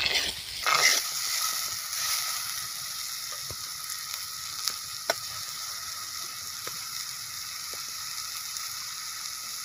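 Chopped onion, curry leaves and freshly added tomato sizzling in hot oil in a clay pot over a wood fire: a steady frying hiss, a little louder in the first second, with a few faint clicks.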